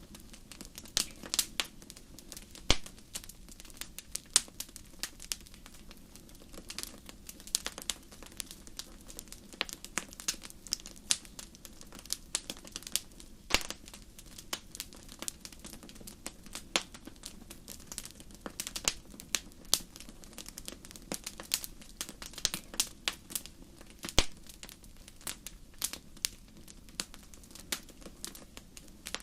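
Wood fire burning in a fireplace, crackling with many irregular sharp pops and snaps over a low steady rush of flame.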